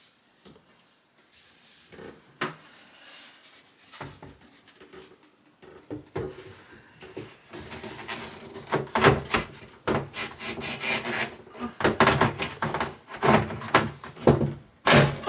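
Repeated scraping and rubbing strokes on a hard surface, sparse at first and then rapid and continuous from about six seconds in.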